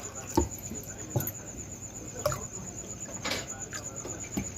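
A few short knocks and clinks of metal kitchen vessels being handled, about one a second, as tumblers of water are measured out for a pot.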